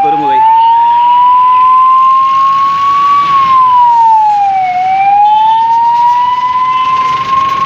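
Ambulance siren wailing loudly. Its tone rises slowly for about three seconds, falls more quickly for about a second and a half, then starts to rise again.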